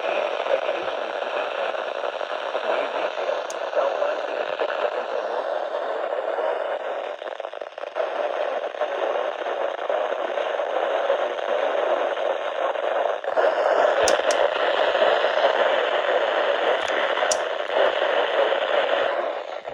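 Radio static: a steady hiss from a radio receiver on a weak or empty channel, shifting about two-thirds of the way through, with a few faint clicks near the end.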